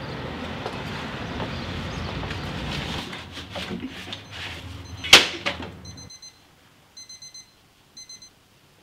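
Outdoor traffic noise, then a newspaper rustling as it is pushed through a metal letterbox, the flap snapping shut with a loud clack about five seconds in. After a cut to a quiet room, an electronic alarm clock beeps in two short bursts of rapid beeps.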